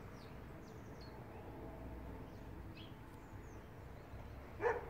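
Small birds giving short, high chirps, scattered through. Near the end comes a single short, louder animal call.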